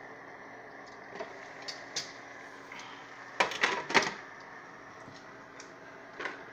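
Metal spoon knocking and clinking against a pan and its glass lid: a few light clicks, then a quick cluster of sharp knocks a little past halfway, over a steady background hum.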